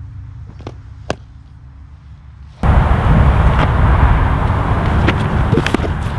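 Wind buffeting an outdoor microphone: a loud, rough rushing rumble that starts abruptly about two and a half seconds in, with a few faint clicks in it. Before that there is a quieter low outdoor hum and two sharp clicks about a second in.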